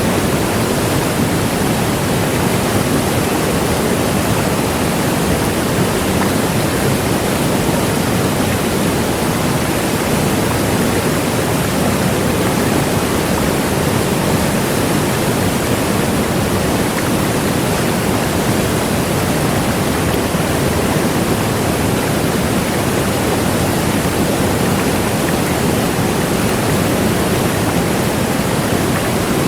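Large waterfall: a steady, loud rush of falling water that holds even throughout.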